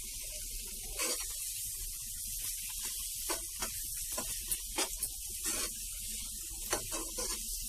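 Bread halwa sizzling steadily in ghee in a nonstick pan as it cooks down, with a steel spoon scraping and tapping against the pan at irregular moments from about a second in.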